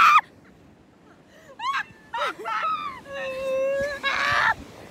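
A young woman's voice making wordless sounds: a loud shout that cuts off right at the start, two short high squeals about a second and a half in, then a long held wailing note that swells just before it ends.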